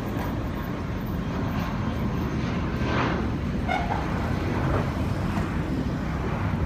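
Airbus A319 airliner's twin IAE V2500 turbofans heard from the ground as the jet passes overhead: a steady low rumble, growing slightly louder.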